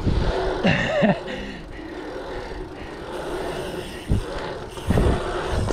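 Wind buffeting the microphone of a bicycle-mounted camera, with bicycle tyres rolling over the asphalt of a pumptrack, in uneven low gusts. A short high cry that rises and falls comes about a second in.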